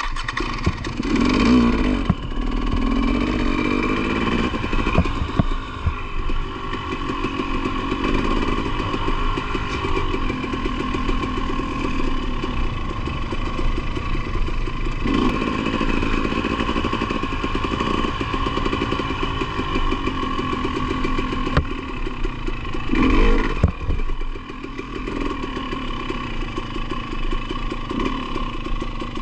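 2020 KTM 300 XC-W TPI's single-cylinder two-stroke engine running as the dirt bike is ridden, its revs rising and falling with the throttle. Sharper bursts of revs come near the start and again about 23 seconds in.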